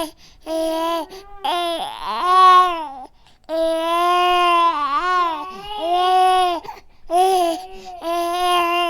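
Baby crying in a string of wails, each about a second long with short catches of breath between them; one longer wail near the middle wavers up and down in pitch.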